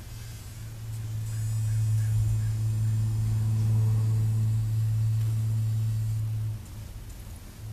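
A fly caught and held by a spider, buzzing its wings in a steady low drone as it struggles. The drone swells about a second in and stops abruptly near the end.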